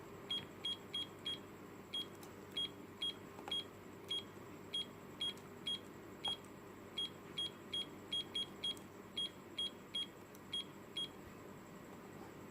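Cube digital alarm clock beeping at each button press while the alarm time is stepped through: about two dozen short, high single-pitch beeps in irregular quick succession, stopping about a second before the end.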